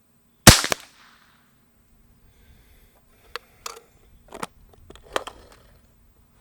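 Unsuppressed Beeman QB Chief .22 PCP air rifle firing once with a sharp snap and a brief echo, about half a second in. A few smaller sharp clicks follow a few seconds later.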